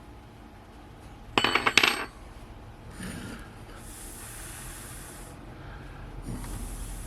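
A small metal part clattering and clinking onto a hard bench with a short metallic ring, about a second in. Two soft high hisses follow later.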